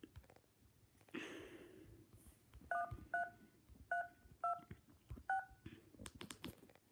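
Touch-tone (DTMF) beeps from an iPad's dial pad: five short dual-tone key presses, about half a second to a second apart, as a phone number is dialed, followed by a few light taps.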